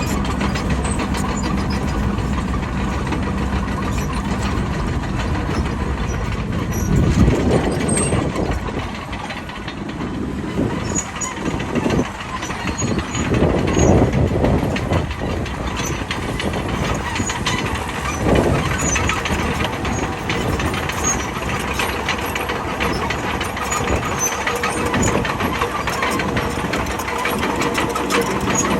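Bulldozer's diesel engine running steadily while working, swelling louder several times as it takes load.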